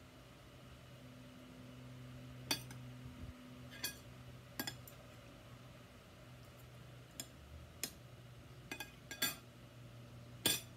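Spoon and fork clinking against a ceramic plate and a glass bowl in about eight sharp, separate clinks, the loudest near the end, over a faint steady low hum.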